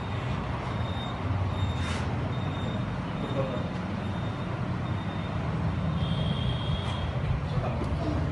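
A steady low mechanical rumble with faint short high-pitched beeps repeating about twice a second, and a longer beep near the end.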